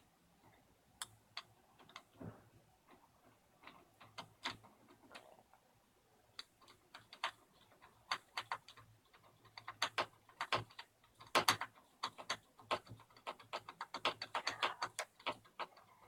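Phillips screwdriver turned by hand in a Kwikset door lock's mounting screw, backing it out: irregular small metallic clicks and ticks, sparse at first and coming thick and fast from about halfway through.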